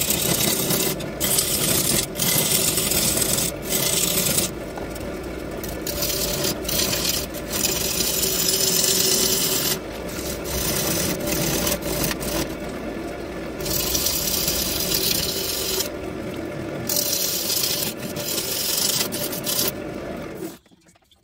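Wood lathe running with a steady hum while a turning tool scrapes and cuts the spinning black walnut bowl blank, a hissing shaving sound that starts and stops with each pass of the tool. Everything cuts off abruptly near the end.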